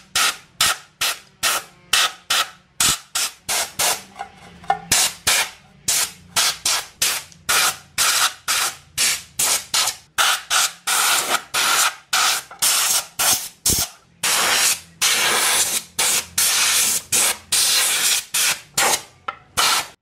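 Compressed-air blow gun blasting dust off an old metal table fan in rapid, short, hissing bursts, with a few longer blasts in the second half.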